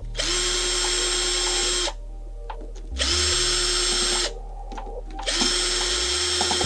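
Electric drill-driver run in three bursts of about a second and a half each, spinning out screws on a Minarelli AM6 moped engine during teardown. Each burst spins up quickly to a steady whine, with short pauses between.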